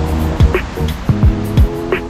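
Background music with held chords over a steady beat of deep, pitch-dropping kick drums and lighter higher hits.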